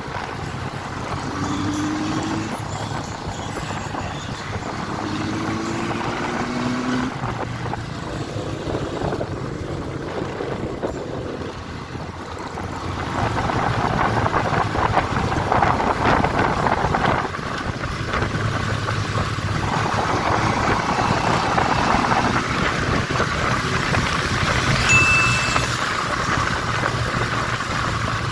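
Motorcycle engine running under way in traffic, its pitch rising twice early on as it accelerates, with road and wind rush growing louder about halfway through. A short high beep sounds near the end.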